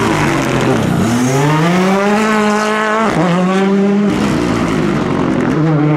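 Rally car engine accelerating hard: its pitch dips, then climbs for about two seconds and cuts off sharply at a gear change about three seconds in, before pulling again.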